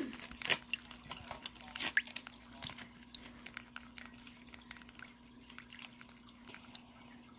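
Wooden stick stirring a runny slime mixture in a glass bowl: soft wet sounds and small clicks against the glass, busier in the first couple of seconds and thinning out after.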